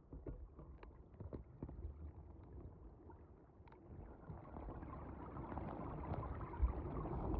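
Muffled low rumble with faint scattered clicks, picked up by a dropped phone's microphone buried in sand on the seabed; it grows slowly louder over the last few seconds.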